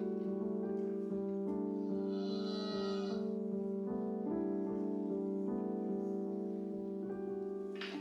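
Calm background music of held chords that change every second or two.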